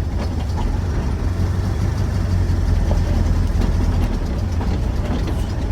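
Ford Ranger pickup being driven, heard from inside the cab: a steady low engine and exhaust rumble with road noise.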